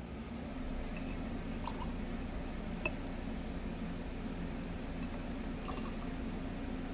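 A steady low hum of room tone, with a few faint clicks and soft squishes of a turkey baster drawing up and squirting fuel.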